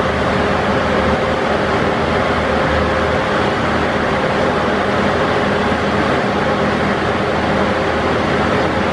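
Škoda 15Tr trolleybus running while it is driven, heard from the driver's cab: a loud, steady machine noise with a faint hum that does not change.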